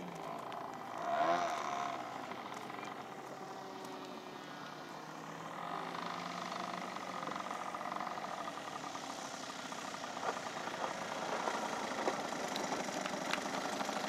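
Engine and propeller of a radio-controlled 3D aerobatic model plane. It sweeps in pitch as it passes about a second in, then runs steadily at low power as the plane lands and rolls along the runway.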